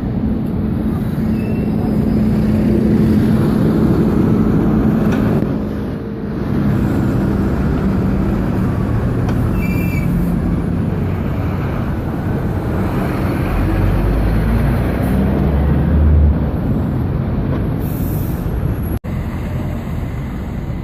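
Buses and road traffic passing at a busy street junction: engines running with a steady drone, then a heavier low rumble as a vehicle pulls by. A short high beep sounds about halfway through.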